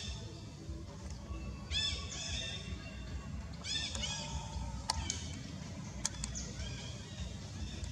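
Two short, high squeaky animal calls, one about two seconds in and another about four seconds in, over a steady low rumble, with a couple of sharp clicks later on.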